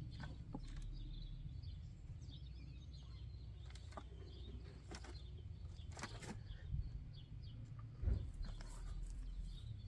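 Faint bird chirps over a low, steady rumble of background noise, with a few soft knocks, the loudest about eight seconds in.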